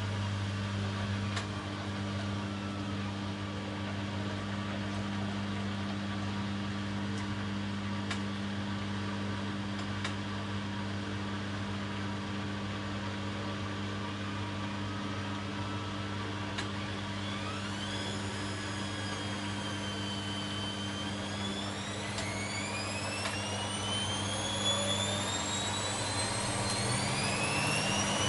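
Bosch Maxx Special WFL 248Y washing machine running with a steady low hum. A little past halfway its motor whine begins to rise in pitch and keeps climbing to the end as the drum speeds up toward spin.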